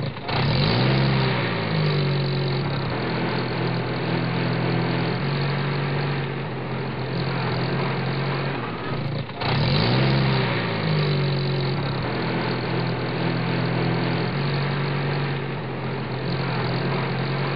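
Truck engine sound effect: the engine revs briefly, then runs steadily, and the same clip starts over about halfway through.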